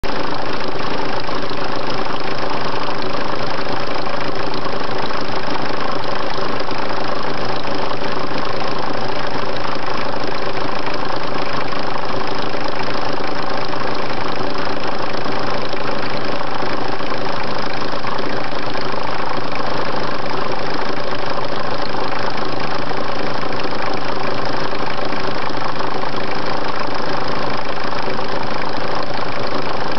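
Car engine idling at a steady speed, with no revving.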